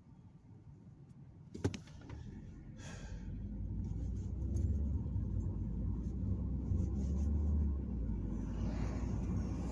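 Car interior road and engine noise: a low rumble that builds from about three seconds in and stays loud. A single sharp click comes a little under two seconds in.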